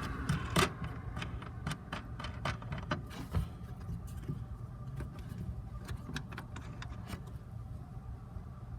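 Irregular sharp clicks and taps of the plastic-and-metal fasteners holding a car tail light assembly being worked loose and taken off, thinning out near the end, over a steady low hum.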